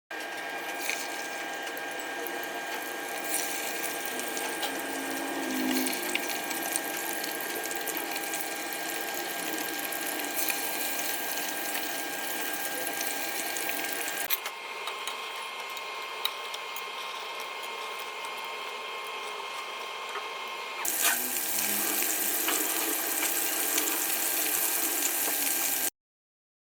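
Frog and eel deep-frying in hot oil, sizzling steadily with many small crackles. The sound changes abruptly twice, about 14 and 21 seconds in.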